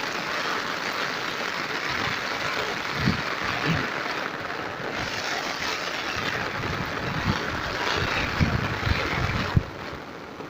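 Heavy rain falling steadily, a dense hiss, with a few low thumps; the hiss drops away sharply near the end.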